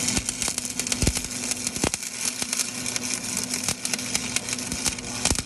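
Stick welder's arc crackling steadily as a welding rod burns, with sharp pops through the crackle.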